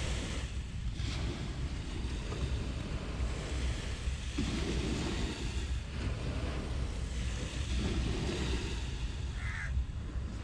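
Surf washing onto a sandy beach, swelling and easing, with wind rumbling on the microphone.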